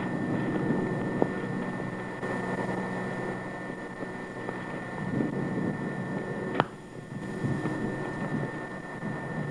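Wind buffeting the microphone over a faint steady high whine, with one sharp click about two-thirds of the way through: a putter striking a golf ball.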